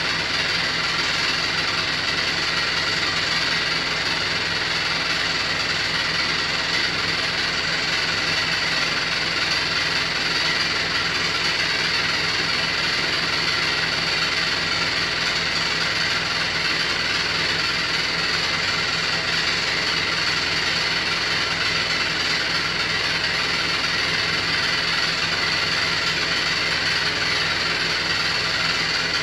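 Beko WY124PT44MW 12 kg washing machine running with a steady rattle and vibration that makes it sound like it is falling apart inside. The cause was a transport bolt left in place at installation.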